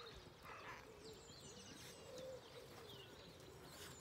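Faint birdsong: scattered high chirps and trills over a low, wavering call.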